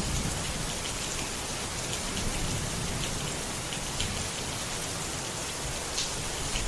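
Steady rain falling on a surface, a dense even hiss with scattered sharp drip ticks, over a faint low rumble that fades in the first moments.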